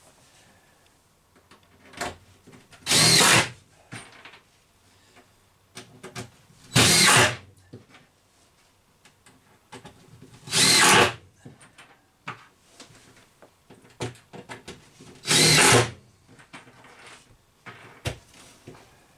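Power drill driving screws into a wooden brace in four short bursts, each screw biting and pulling down into the wood. Light knocks and clicks come between the bursts.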